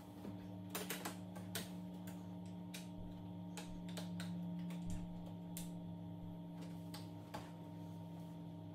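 Irregular light clicks and taps of cable connectors being pushed back onto a TV's T-con board and plastic parts being handled, over a steady low hum.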